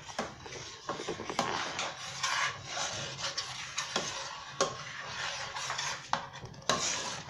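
A metal spoon stirring a thick, milky maja blanca mixture in a stainless steel pot, scraping round the pot with occasional sharp knocks against its side.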